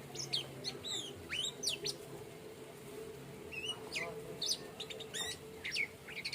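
Orange-headed thrush singing: quick runs of sharp, high whistled notes sweeping up and down, in two bursts with a short pause between them, over a low steady hum.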